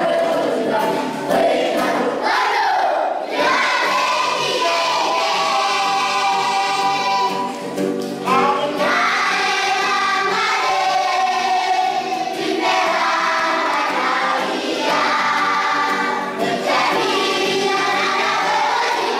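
Children's choir singing a gospel song as background music.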